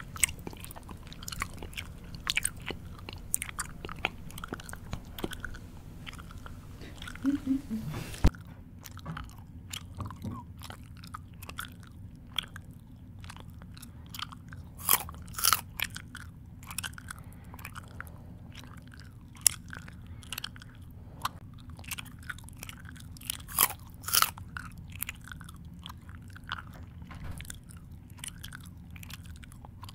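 Close-miked chewing with open-mouthed smacks and irregular sharp crunchy bites.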